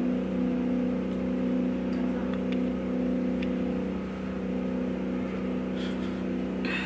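A steady low hum of several held tones that does not change.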